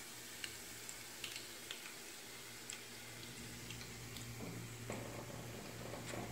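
Mutton kola urundai deep-frying in oil on a low flame: a faint sizzle with scattered small pops and ticks, the quiet bubbling that shows the balls are nearly cooked through. A few duller knocks come near the end.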